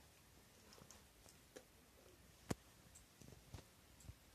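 Near silence with a few faint, scattered clicks, the sharpest about two and a half seconds in.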